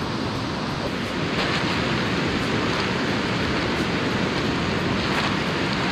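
River flowing, a steady rushing noise, with wind blowing on the microphone.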